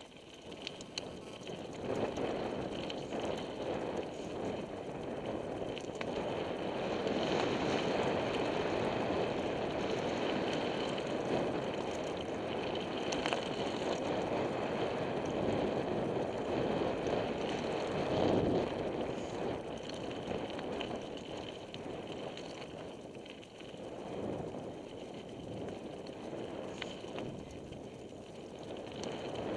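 Mountain bike descending a rocky, loose-gravel trail at speed: tyres rumbling and crunching over stones and the bike rattling, mixed with wind rushing over the action camera's microphone. It gets louder about two seconds in as the bike picks up speed.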